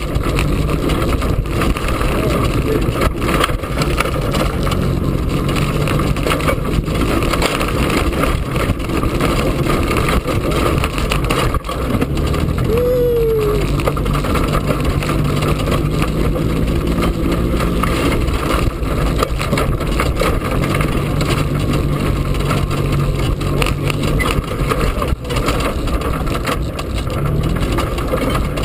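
EZGO golf cart driving over a rough woodland trail: a steady noisy rumble with many knocks and rattles over the bumps, and a low hum that comes and goes.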